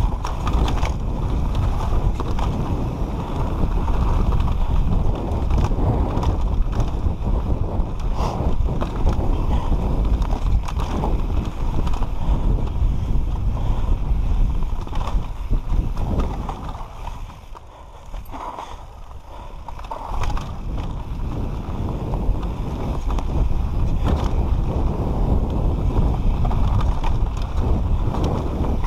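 Mountain bike descending a loose dirt trail at speed: wind rushing over the camera microphone, tyres rolling on dirt and the bike rattling over bumps. It goes quieter for a couple of seconds about two-thirds of the way through, then picks up again.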